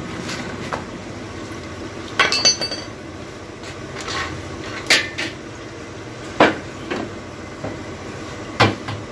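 Metal clanks and knocks from a Toyota Harrier automatic transmission being handled and turned over during teardown: a handful of sharp strikes, the first cluster about two seconds in with a brief metallic ring.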